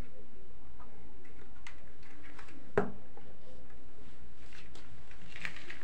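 A loudspeaker driver being handled and set down on the floor: faint clicks and rustles, with one sharp knock about three seconds in as it lands.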